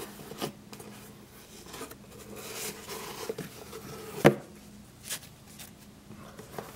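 Foam insert and cardboard packaging being handled and lifted out of a box: soft rubbing and scraping with small clicks, and one sharp knock about four seconds in, the loudest sound.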